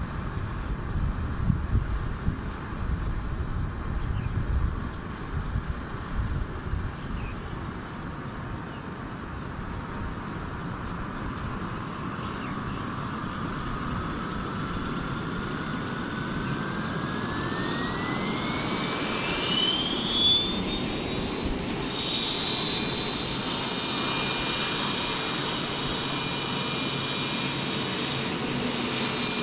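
Wren 44i model gas turbine spooling up in a T-REX 700 RC helicopter: a whine starts rising slowly about a third of the way in, climbs quickly about two-thirds in, then holds as a steady high whine. Wind rumbles on the microphone at the start.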